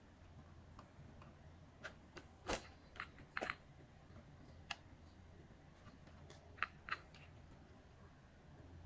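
Faint, scattered plastic clicks and taps from handling the RC car's remote control, about eight in all, most of them between about two and seven seconds in.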